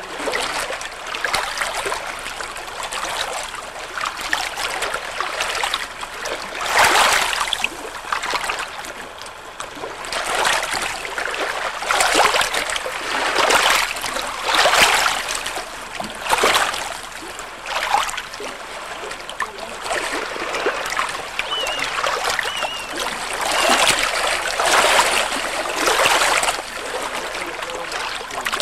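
Small lake waves lapping and washing over shoreline rocks, surging and ebbing in uneven swells every second or two.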